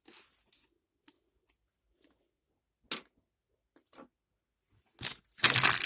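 A Hot Wheels mystery model's packaging being opened by hand: a few faint taps and clicks, one sharper click about three seconds in, then loud tearing and crinkling near the end as the car is freed.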